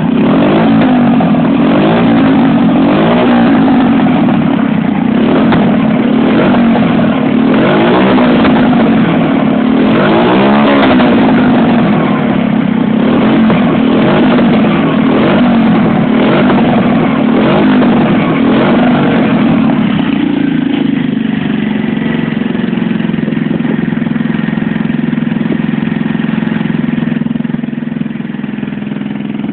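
Motorcycle engine running through an aftermarket aluminium exhaust, blipped repeatedly so the pitch sweeps up and back down again and again. It then settles to a steady idle for the last third.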